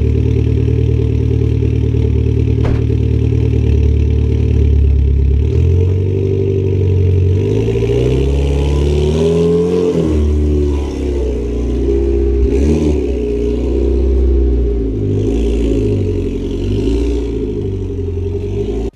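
Mitsubishi Lancer Evolution X's turbocharged 2.0-litre four-cylinder running through an HKS Hi-Power 409 exhaust. It idles steadily, then from about five seconds in the engine note rises and falls several times as the car drives off.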